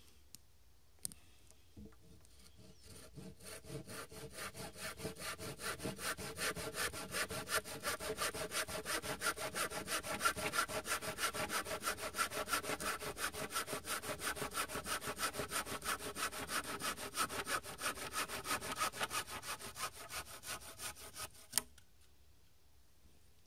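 Budget yellow-handled hand saw cutting through a damp branch in rapid, even back-and-forth strokes that start about two seconds in and build in loudness. The sawing ends with a sharp crack about two seconds before the end as the cut goes through.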